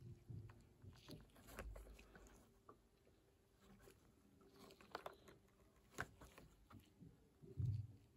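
Faint handling noise of a cardboard-and-plastic blister card held and turned in gloved hands: scattered small crinkles and clicks, with a soft low bump near the end.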